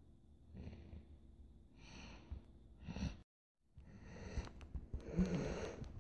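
Faint breathing close to the microphone: three soft breaths about a second apart, then a short total dropout, then breathing that grows louder and busier near the end.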